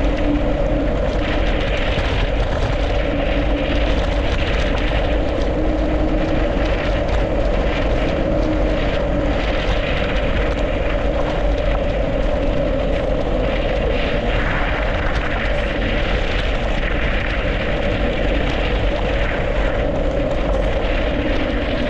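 Mountain bike rolling downhill on a snowy, icy road: a steady rush of tyres and wind on the microphone, with a steady drone-like hum over it.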